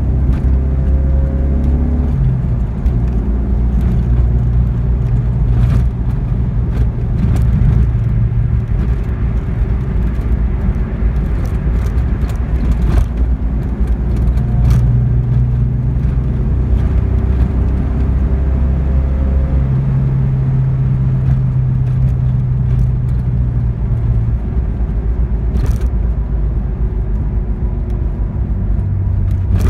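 Alfa Romeo 33's 1351 cc flat-four boxer engine with twin twin-choke carburettors, running on new Bosch spark plugs, heard from inside the cabin while cruising: a steady low engine hum whose tone shifts several times, over road noise and a few light knocks.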